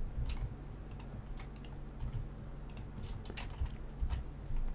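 Computer keyboard keys tapped at an irregular pace, about ten separate faint clicks, over a low steady hum.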